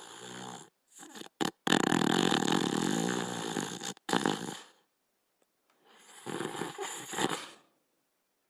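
A sleeping dog snoring: a few short snuffling breaths, then a long, loud rattling snore about two seconds in, a brief one after it, and a softer snore near the end.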